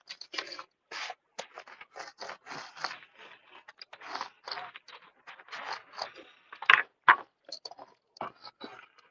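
Ink brayer rolling back and forth through ink and over a rubber stamp: a run of short, irregular crackly scrapes, with two sharper strokes about seven seconds in.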